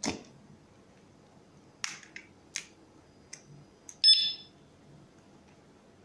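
Light plastic clicks and taps from a smartphone being handled on its anti-theft display stand, then a short electronic beep of about half a second, the loudest sound, about four seconds in.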